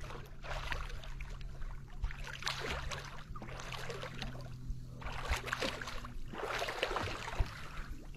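Water splashing and sloshing around a swimmer pushing a swamped Old Town Saranac 146 DLX canoe through the lake, in irregular surges about a second long.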